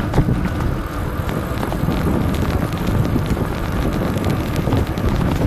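Wind buffeting the microphone of a camera carried on a moving bicycle, with tyre and road rumble and scattered small clicks and rattles.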